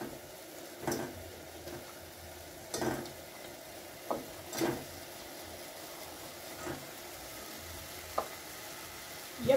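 Fried chicken pieces being pushed off a paper serviette with a knife into a pot of simmering stew: about seven soft knocks and light clinks of the knife against the metal pot over a faint steady sizzle of the boiling stew.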